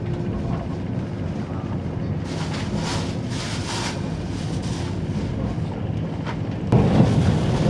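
JR 485-series electric multiple unit running at speed, heard from inside the passenger car as a steady low rumble. About seven seconds in, the running noise suddenly gets louder and rougher.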